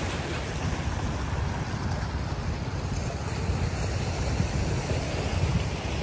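Small waves washing in over a shallow sandy beach, with wind rumbling steadily on the microphone.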